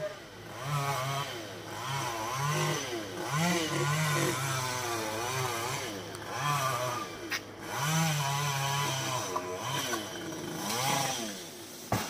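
Chainsaw running high in a tree, cutting branches, its engine pitch rising and falling again and again as the throttle and load change. A single sharp knock comes about seven seconds in.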